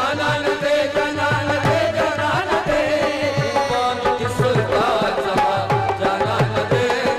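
Pashto folk song: tabla plays a steady rhythm, its low drum strokes sliding down in pitch, under a bending melody and held tones.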